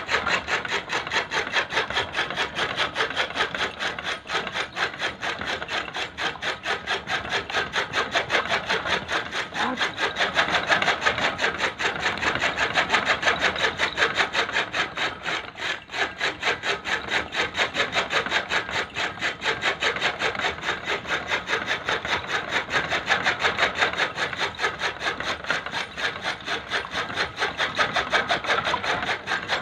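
Bullock-driven chaff cutter chopping fodder, its blades slicing through stalks in a fast, even run of rasping strokes, with a brief dip about halfway.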